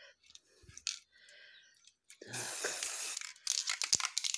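Aerosol spray-paint can hissing in a burst about two seconds in, followed by a run of crackles and clicks.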